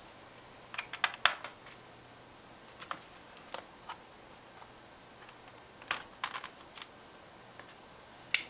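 Scattered sharp clicks and taps of hands and tools on a laptop's plastic underside, in small clusters with pauses between and one louder click near the end.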